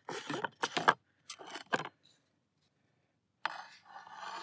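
Sliced steak pushed off a wooden cutting board onto a metal plate with a metal utensil: short scrapes and knocks in the first two seconds, then a longer scrape of the meat and utensil sliding across the board a little past halfway.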